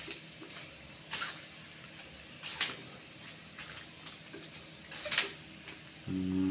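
Kerupuk puli crackers frying in oil in a wok with a faint sizzle, a metal spatula scraping against the wok three times as the crackers are pressed and turned. Near the end a short, steady, low-pitched hum-like sound, the loudest thing here.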